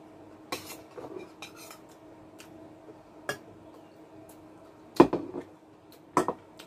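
Fork clinking and scraping against foil takeaway trays and plastic containers while eating, a scatter of short sharp clicks with the loudest about five seconds in. A faint steady hum runs underneath.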